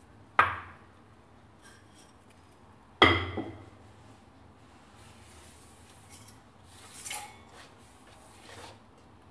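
Small metal frying pan clanking twice with a short ring, about half a second in and again about three seconds in, as semolina dough is handled in it; a few fainter rustles follow.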